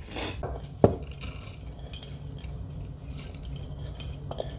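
Kitchenware clinking and scraping as washed dal (lentils) is transferred into a small pressure cooker, with one sharp knock of metal about a second in.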